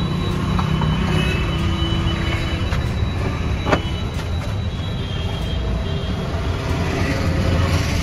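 Steady rumble of passing road traffic, with a single sharp click about three and a half seconds in.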